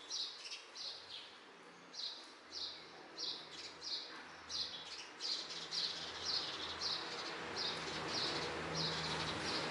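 A bird calling over and over with a short, high, falling chirp, about two calls a second. A steady rushing background and a low hum grow louder through the second half.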